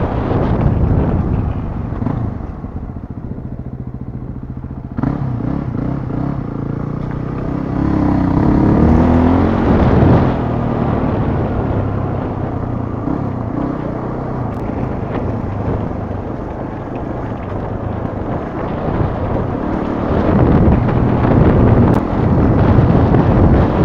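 Yamaha WR250R's single-cylinder four-stroke engine under way on a dirt track, easing off for a few seconds early on, then pulling harder again about five seconds in, with its pitch rising and falling as the throttle opens and closes.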